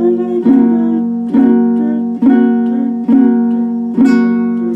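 Baritone ukulele, tuned D-G-B-E, strummed on an F-sharp chord: five strums about a second apart, each left to ring, the last one dying away near the end.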